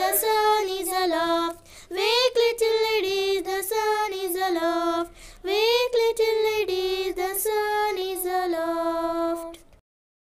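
A child singing the poem's simple tune unaccompanied, in three phrases, cutting off abruptly near the end.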